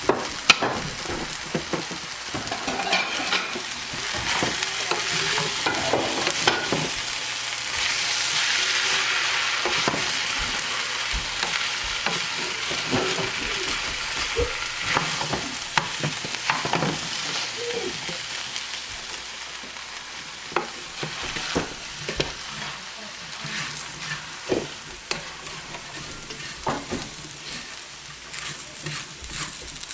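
Rice and kidney beans frying in a hot pan, sizzling steadily while being stirred, with the spoon scraping and knocking against the pan again and again. The sizzle swells a few seconds in and eases off in the second half.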